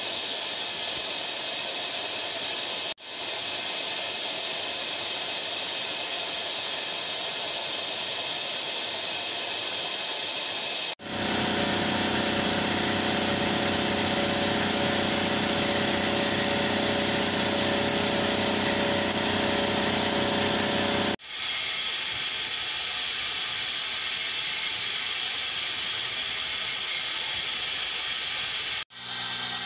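Carbide end mill cutting 2017 aluminium on a CNC mill: steady spindle and cutting noise with a strong hiss. The sound changes abruptly three times, and the middle stretch is louder, with a steady whine over the noise.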